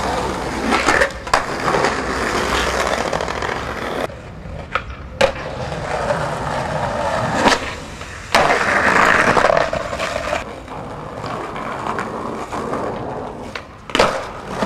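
Skateboard wheels rolling over brick paving, with sharp clacks of the tail popping and the board landing. About halfway through there is a pop, then a landing off stairs, and the rolling grows louder.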